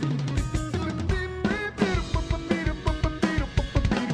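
Background music with a drum kit beat, bass line and a gliding lead part.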